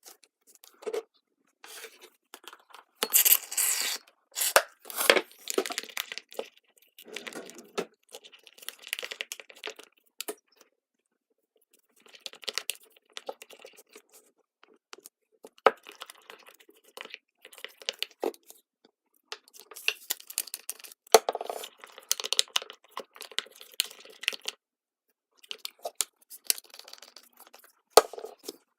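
Hands handling slime-making materials: irregular crackling, clicks and short rustling tears, in bursts with brief gaps between them.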